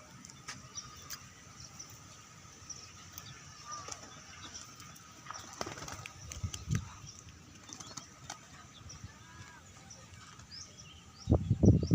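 Pigeon wings flapping in a flurry of loud beats near the end, over faint high bird chirps.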